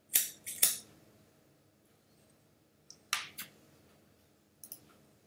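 Sharp clicks at a computer, in three short clusters of two or three clicks each, near the start, about three seconds in, and near the end.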